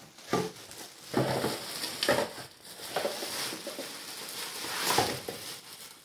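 Black plastic bin bag rustling and crinkling as hands dig into it and pull something out, in irregular swells about a second apart.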